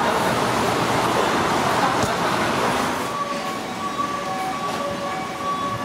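Steady rushing, rumbling background noise. About three seconds in it drops a little and a faint steady whine of several tones comes in over it.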